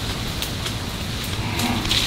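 A cow lowing briefly near the end, over a steady noisy outdoor background.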